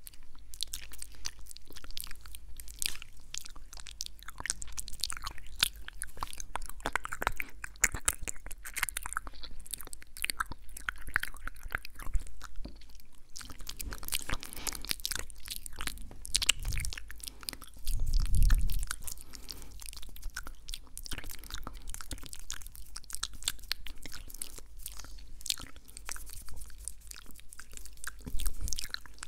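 Close-miked ASMR mouth sounds: a steady run of rapid wet clicks and smacks. A louder low thump comes about two-thirds of the way through, with a smaller one near the end.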